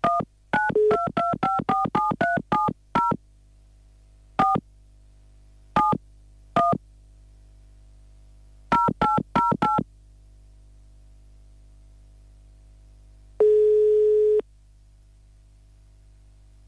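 Telephone keypad tones as a number is dialled: a fast run of about a dozen key beeps, then a few single beeps and a quick run of four. Near the end comes one steady ringing tone lasting about a second, as the call starts to ring.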